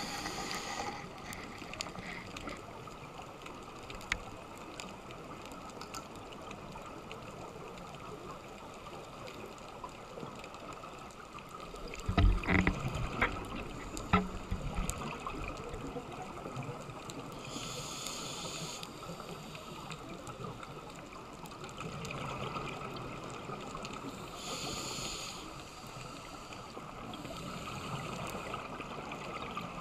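Underwater sound picked up by a camera in a dive housing: a steady hiss with faint scattered clicks, and the scuba diver's exhaled regulator bubbles rushing past every several seconds. About twelve seconds in there is a louder low rumbling burst with a few knocks.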